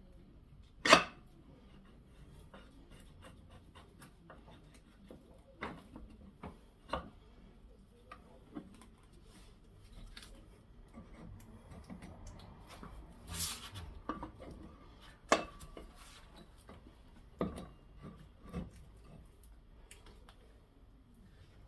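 Metal scooter front-wheel parts and tools being handled: scattered light clicks and knocks, one loud knock about a second in, a scraping rub around the middle, and a short metallic ring a little later.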